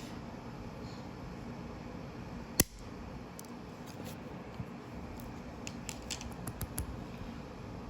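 Lego plastic parts being handled: one sharp loud click, then a scatter of lighter clicks about three seconds later, over a steady hiss.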